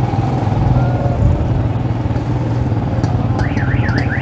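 Motorcycle engine running steadily while carrying two riders through street traffic. Near the end a warbling electronic tone from another vehicle rises and falls about four times.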